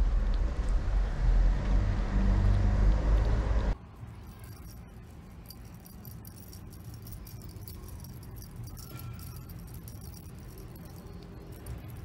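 Wind buffeting the microphone for the first few seconds. Then the level drops suddenly, and a kitten's toy balls jingle and rattle faintly with scattered small clicks as the kitten bats and wrestles them.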